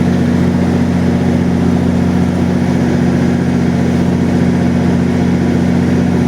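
MP40PH diesel locomotive standing at the platform with its EMD 16-710 prime mover running, a steady, unchanging low engine drone.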